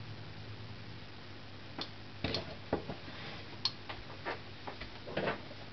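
A scattered run of light clicks and knocks from metal kitchen tongs and a bamboo steamer basket being handled while steamed vegetables are served onto a plate, over a low steady room hum.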